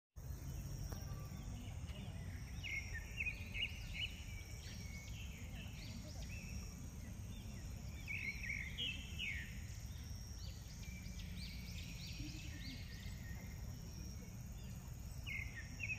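Birds chirping in clusters of short, high, quickly sweeping calls, over a steady low rumble.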